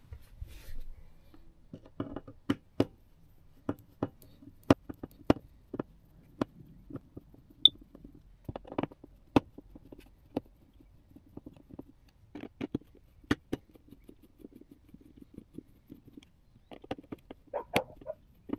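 Irregular sharp clicks and taps of a hand screwdriver and fingers working the mounting screws of an RV propane detector's faceplate.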